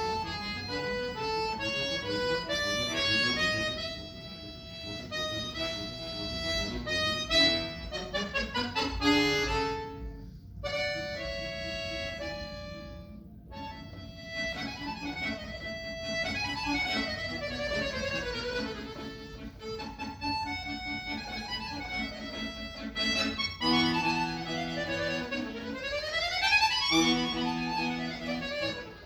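Accordion played solo: quick runs of notes over chords, broken by two short pauses about ten and thirteen seconds in. Near the end, loud held chords alternate with fast rising runs.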